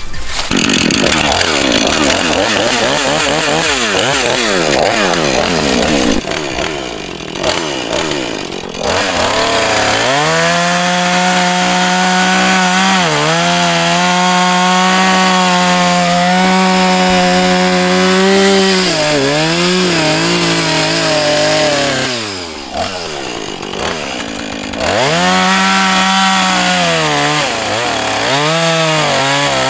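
Chainsaw engine running hard, cutting through wood. Its pitch dips and the level drops briefly several times as the throttle eases off and comes back up.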